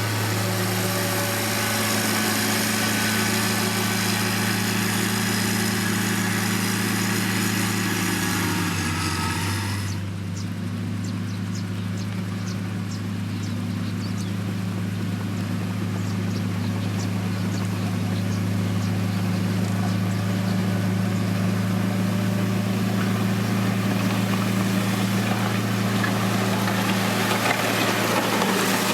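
Diesel engine of a heavy road-building machine running steadily with a deep, even note. About ten seconds in, a high hiss that was over it drops away and the engine note shifts slightly, then carries on.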